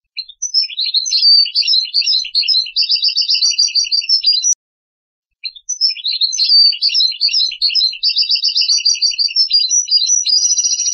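Finch singing a goldfinch-style song: fast, varied twittering notes in two long phrases, with a short pause about four and a half seconds in.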